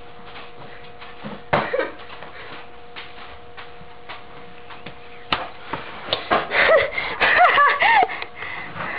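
A few sharp knocks and thumps over a steady hum, then excited voices crying out with rising and falling pitch for about a second and a half near the end.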